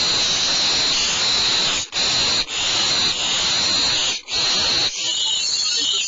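Barn owls hissing in the nest at a prey delivery: long harsh hisses, each a second or two long, with short breaks between them.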